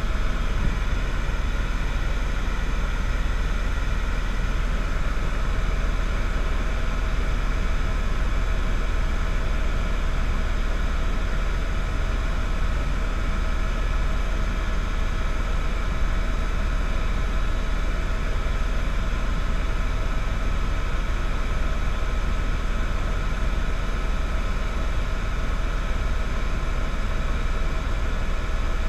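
Steady vehicle engine drone with a deep rumble and several steady whining tones, running unchanged throughout.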